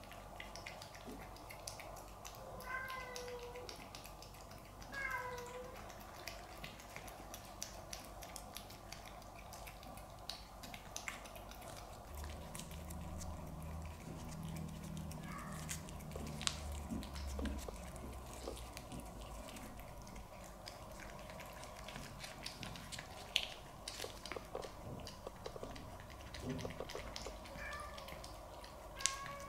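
Domestic cats meowing: short meows that fall in pitch, about 3 and 5 seconds in and again faintly later, over many small wet clicks of cats licking a squeeze-tube treat.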